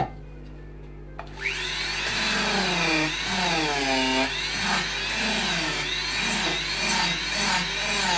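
Handheld power carving tool switched on about a second in and grinding away wood, its motor pitch repeatedly dipping and recovering as it bites into the wood under load.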